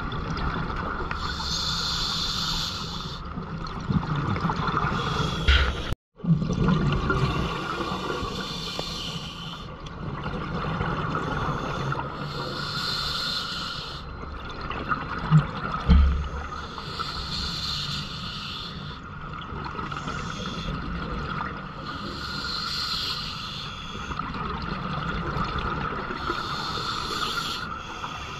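Scuba diver breathing through a regulator underwater: a rush of air and bubbles recurs about every four to five seconds over a steady hum. A dull knock comes about halfway through.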